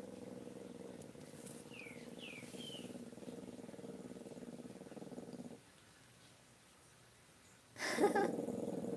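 Small dog growling low and continuously at its reflection in a mirror, with a few brief high whines about two seconds in. The growl breaks off for a couple of seconds, then a sudden sharp bark comes near the end and the growling starts again.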